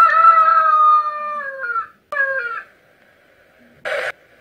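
Rooster crowing: a long held call that falls slightly in pitch, then a short falling note about two seconds in. A brief burst of noise near the end.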